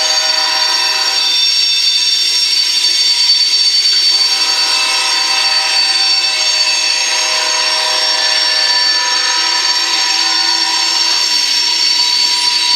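Freight train passing, its wheels giving a steady high-pitched squeal. A multi-note locomotive air horn chord ends about a second in and sounds again in one long blast from about four to eleven seconds.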